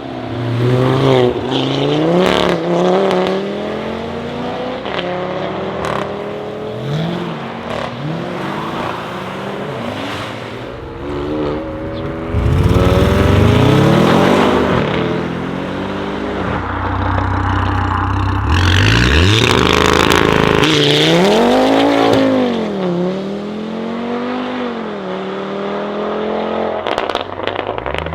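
Audi RS3 8P's turbocharged five-cylinder engine through a straight-pipe exhaust, revving and accelerating hard, its pitch climbing and dropping again and again as it runs through the gears. It is loudest in two long pulls around the middle, and sharp crackles come near the end.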